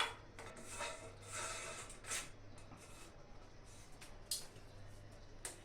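Short clicks and scrapes of a shower head being handled and screwed onto the shower arm by hand, metal and plastic fittings rubbing as the threads are turned.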